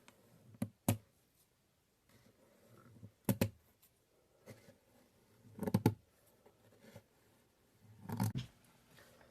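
Knife cutting through kinetic sand in separate strokes: two short clicks near the start, then three longer bursts about two and a half seconds apart.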